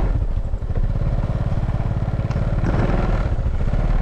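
Small motorbike engine running steadily as the bike rides along.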